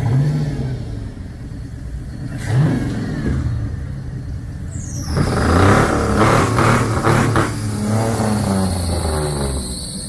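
Rat rod's exposed engine idling and being revved: a quick blip just after the start and another about 2.5 s in, then a run of rapid revs from about halfway to near the end before it settles back to idle.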